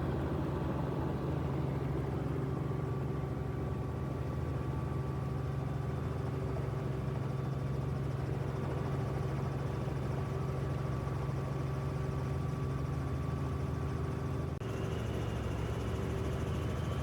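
Very loud helicopter noise heard from inside the cabin in flight: a steady drone of engine and rotor with a strong low hum. The tone shifts slightly about fifteen seconds in.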